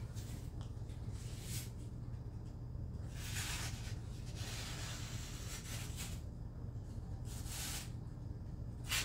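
A freshly sharpened mini cleaver making test cuts: several short swishing slicing strokes, a second or two apart, over a steady low hum.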